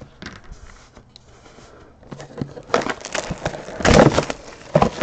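Cardboard trading-card hobby box being handled and opened. Faint for about two seconds, then a run of scraping, rubbing and knocking, loudest about four seconds in.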